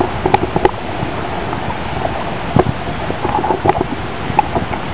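Wind on the microphone and water lapping against a small boat on a lake, with a few light knocks.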